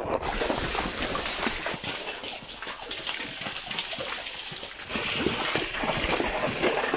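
A horse walking along a dirt trail under its rider: irregular hoof falls and scuffs mixed with rustling noise.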